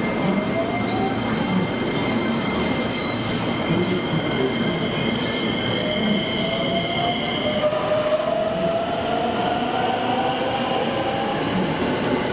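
Electric train running at the station platform: two steady high squeal tones that cut off about two-thirds of the way through, while a motor whine rises steadily in pitch as the train gathers speed.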